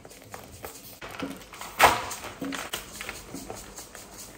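A packet of dried sushi nori crinkling as crisp seaweed sheets are pulled out of it, with scattered rustles and one brief sharp crackle about two seconds in.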